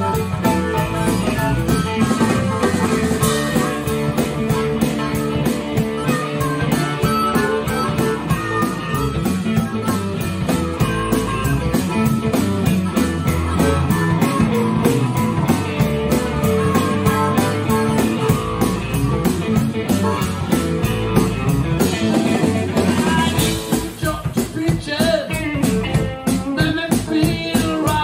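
Live rock band playing with electric guitar, bass guitar and drum kit to a steady beat; near the end the sound thins a little and a wavering lead line stands out.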